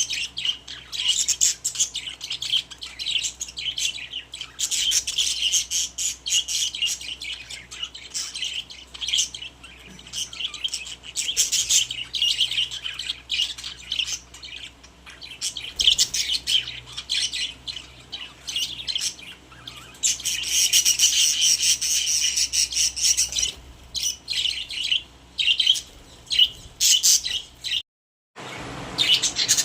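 Several pet budgies chirping and warbling in a continuous, busy chatter, with a short break in the sound near the end.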